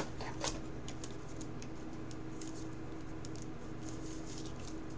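Faint light clicks and rustles of a trading card and a rigid clear plastic card holder being handled, over a steady low hum.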